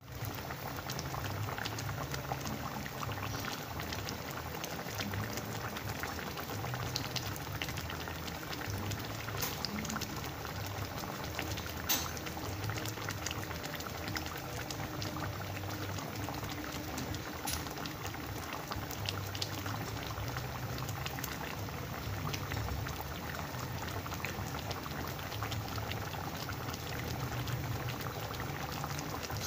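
Catfish simmering in coconut milk in an open aluminium pan: steady bubbling with many small pops.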